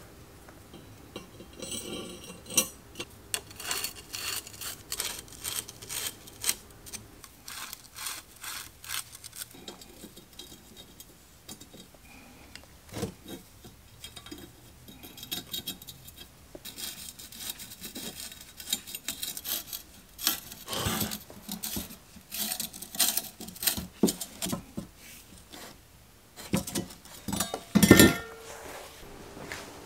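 Bicycle chainrings and chainring bolts clinking, scraping and tapping against each other as a triple crankset is put together by hand, in many short irregular clicks and rubs, with one louder knock near the end.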